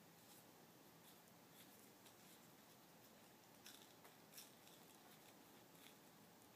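Near silence, broken by a few faint, scattered rustles and ticks from gloved hands handling paper wrappers and gauze dressing supplies on a table.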